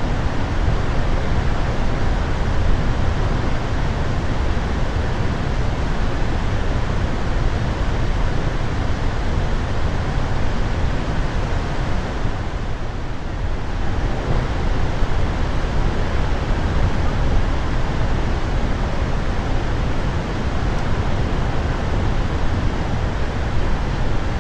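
Snoqualmie Falls running above flood stage, about 25,000 cubic feet per second: a loud, steady rush of falling water with a deep low rumble, easing slightly about halfway through.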